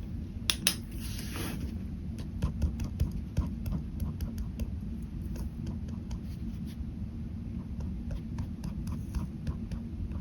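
Ballpoint pen drawing on paper: many short ticks and strokes, with a longer scratchy stroke about a second in, over a steady low hum.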